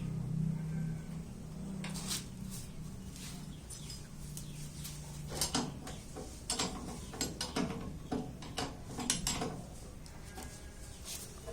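Metal clinks and knocks of hand tools and parts being handled while a machine is taken apart. There is a low hum in the first half, and a quick run of sharp clinks from about halfway in.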